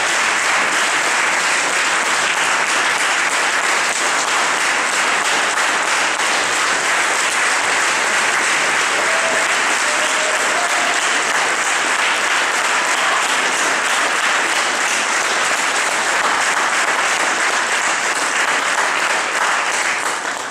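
Audience applauding steadily, a dense even clapping that is cut off abruptly at the very end.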